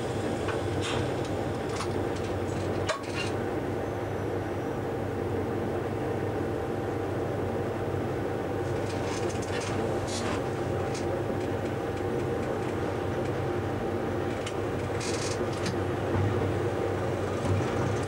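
Diesel engine of a DSB class MK shunting locomotive running steadily, heard from its cab while it creeps through the yard. A few clanks and knocks break in now and then, the sharpest about three seconds in and another about fifteen seconds in.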